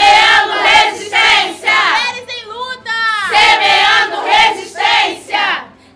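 A group of women chanting loudly together in unison, in short, forceful phrases that stop near the end.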